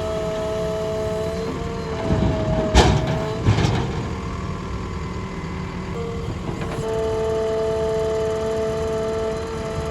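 JCB 3DX backhoe loader's diesel engine running with a steady hum. Two loud clunks come about three seconds in, half a second apart, and the engine note shifts and then holds steady near the end.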